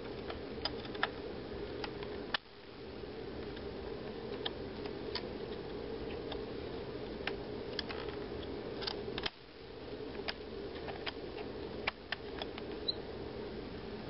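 Scattered faint clicks and taps from hands handling DDR2 laptop RAM modules as they are seated in their slots, over a steady low background hum. The hum dips out briefly twice.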